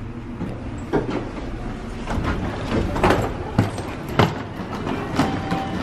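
Wheels of a hard-shell rolling suitcase running over a stone-tile floor and onto a metal entrance grate: a rolling rumble broken by irregular sharp clacks as the wheels cross joints and slats.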